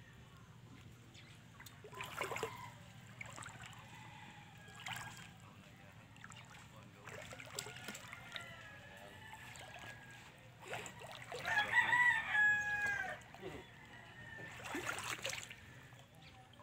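A rooster crowing. The loudest crow is a drawn-out call of about a second and a half, falling at the end, about two-thirds of the way in, among fainter calls and background sounds.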